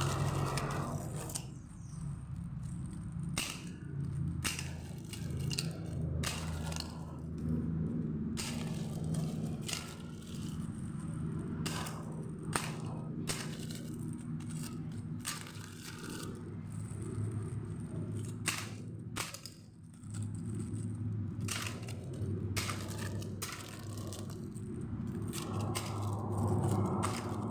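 Plastic parts and packaging being handled and snapped about: irregular clicks, snaps and crackles over a steady low hum.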